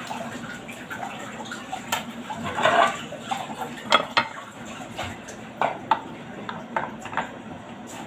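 Scattered clinks and clatters of hard objects being handled, with a denser rattle about two and a half seconds in.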